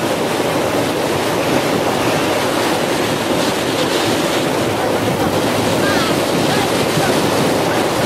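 Rough sea surf breaking and washing against the shore, with wind buffeting the microphone: a steady rushing noise.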